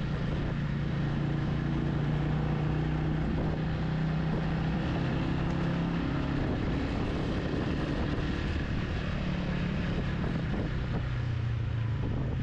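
Motorcycle engine running at a steady cruising pace over a rushing noise; the engine note drops a little near the end.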